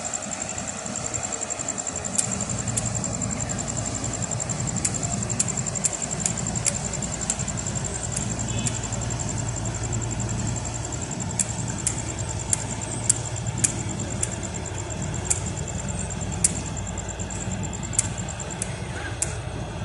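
Engine of a large wooden river cargo boat running steadily as it passes, a low even hum. A faint steady high whine and scattered sharp clicks sit over it.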